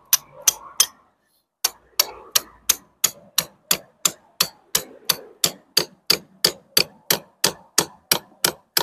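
Hammer blows on a steel plugging chisel, driving it into the soft lime mortar joints around a brick to cut it free: sharp, evenly spaced strikes, about three a second, with a brief pause about a second in.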